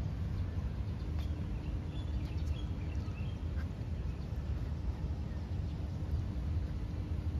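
Outdoor ambience with a steady low rumble and a faint hum, with a few short bird chirps about one to three seconds in.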